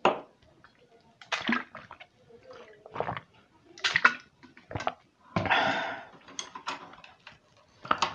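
Drinking from a plastic sports bottle: a string of gulps and slurps of liquid, with one longer breathy rush a little after halfway through.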